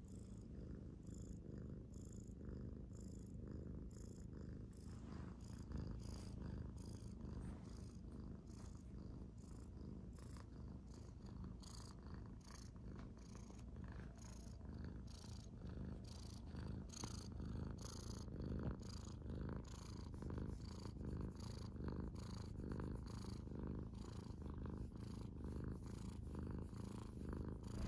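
Domestic cat purring steadily and softly while being petted.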